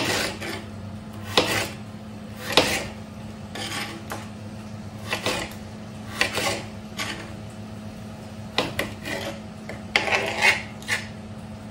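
Kitchen knife cutting small red hot peppers on a plastic cutting board: irregular scrapes and taps of the blade on the board, one or two a second.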